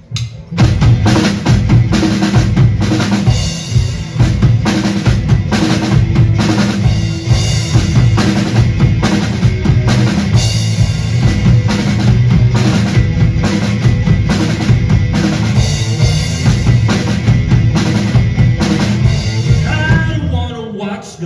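Live rock music: a drum kit played hard and fast, with snare, rimshots, bass drum and rolls, over sustained electric guitar notes. The dense drumming eases just before the end.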